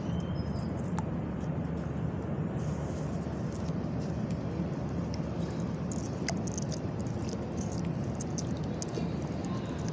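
Steady low outdoor background rumble, with a few faint, sharp high clicks from about six seconds in.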